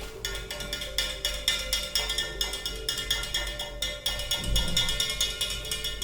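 Instrumental background music: sustained tones over a quick, steady tapping beat.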